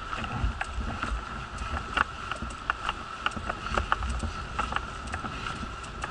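Wheelchair rolling over brick paving: irregular clicks and rattles as the wheels cross the joints, over a low rumble, with a steady high whine alongside.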